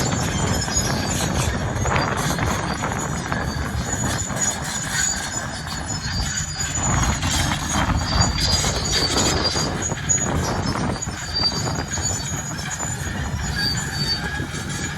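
Crawler tractor (bulldozer) working: its diesel engine runs steadily under load while the steel tracks clank and give off intermittent high-pitched squeals.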